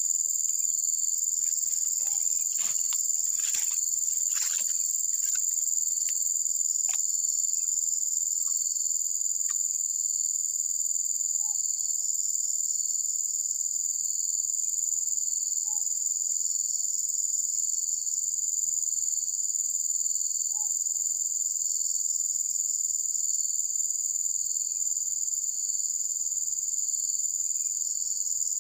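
Dense insect chorus: a steady, shrill, high buzz with a fine rapid pulse that does not let up. In the first several seconds there are a few short rustles and taps, and later some faint short chirps.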